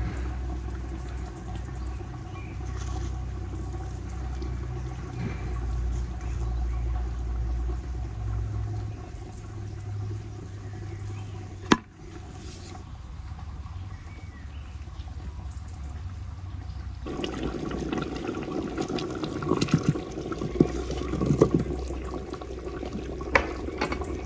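Large pot of liquid boiling hard, a steady bubbling with a low rumble beneath. A single sharp click comes about halfway through, and the bubbling turns louder and busier, with many small pops, in the last third.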